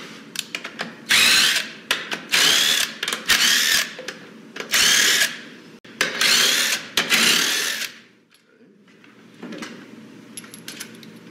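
Small cordless power driver with a 10 mm socket spinning out the front support bolts of a Ford 10R80 ten-speed automatic transmission, in about six short bursts with a rising whine in each. Light metal clicks come between the bursts and after them.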